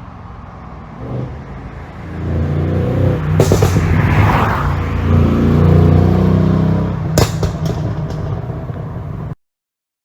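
Mercedes-AMG S63 Coupe's twin-turbo V8 revving up from a low run and pulling hard for several seconds. Sharp exhaust pops from its pop-and-crackle ECU tune come about a third of the way in and again as the revs drop, with a few smaller crackles after. The sound cuts off suddenly near the end.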